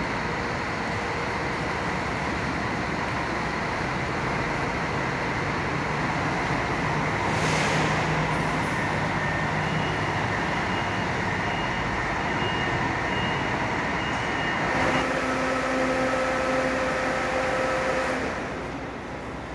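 Bus engines running at a bus terminal, with a brief hiss about seven and a half seconds in. The noise eases off near the end.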